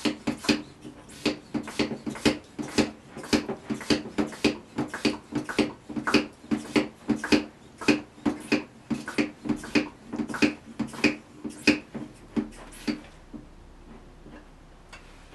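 Hand vacuum pump on a wine stopper being worked up and down on a glass bottle, about two strokes a second, stopping a couple of seconds before the end. It is drawing the air out of the bottle to make a partial vacuum.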